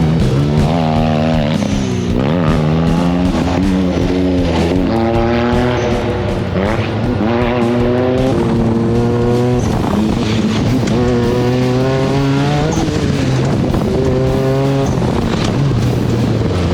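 Off-road buggy engine revving hard, climbing in pitch and dropping back again and again as it is driven through the gears around a dirt track.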